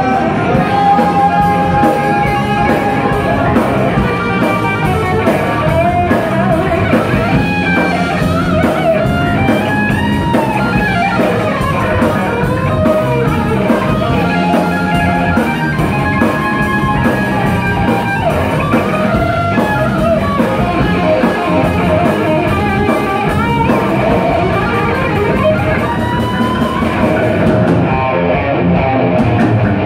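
Live rock band playing without vocals: an electric guitar lead with notes that bend up and down, over bass guitar and drum kit.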